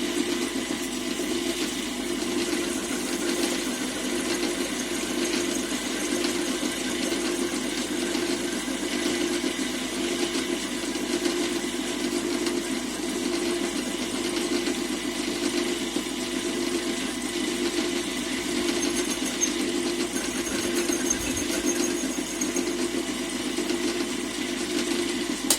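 Old metal lathe running under power, a steady machine hum and whir from its motor and gearing, until it is switched off and stops abruptly at the end.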